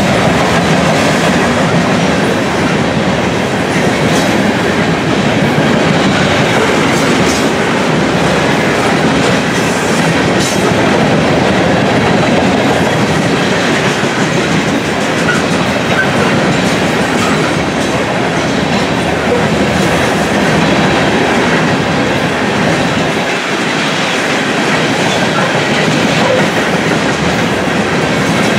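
Freight train of covered hopper cars rolling past, steel wheels clacking over the rail joints with a steady, loud rumble and rattle.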